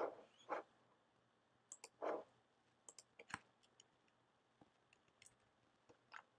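Computer mouse clicking: a handful of short, separate clicks, the louder ones near the start and about two seconds in, over near-silent room tone.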